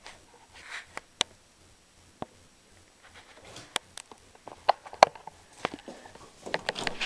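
Scattered sharp clicks and knocks from a storm door being handled and pushed open, the loudest about five seconds in and a quick run of them near the end as the door swings out.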